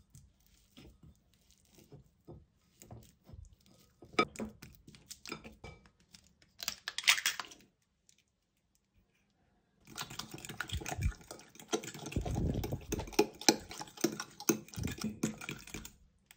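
A metal fork mashing a banana in a glass bowl, the tines clicking and scraping against the glass. About seven seconds in an egg is cracked into the bowl. From about ten seconds in comes a steady stretch of fast fork clicks and squelching as the banana and egg are beaten together.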